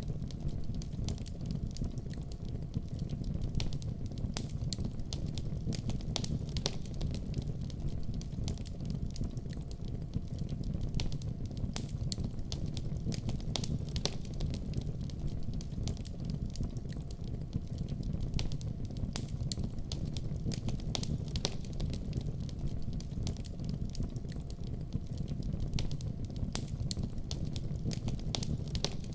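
Wood fire burning in a fireplace: a steady low roar of flames with frequent irregular crackles and pops from the logs.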